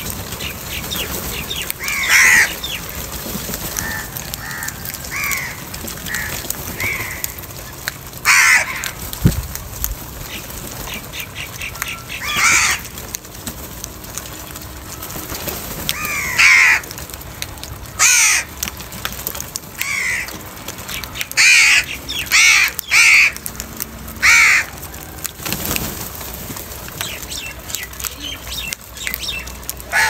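A flock of house crows cawing as they feed together: loud, harsh caws at irregular intervals, about a dozen in all, with fainter calls from other crows in between.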